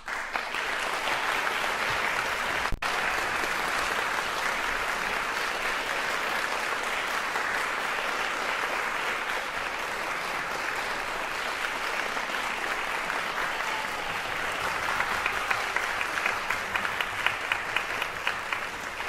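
Audience applauding, starting suddenly and holding steady, with one sharp click about three seconds in; near the end single claps stand out more from the wash of clapping.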